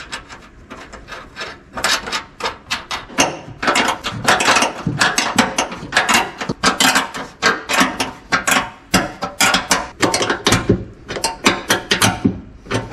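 Fast metallic clicking in irregular runs, like a ratchet wrench, as bolts are fastened through the steel bracket that holds the coolant expansion tank.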